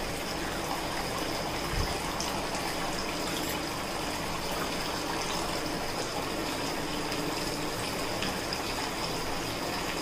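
Homemade cement tabletop waterfall fountain running: water falling in thin streams and spilling down a channel into its basin, a steady, even water sound.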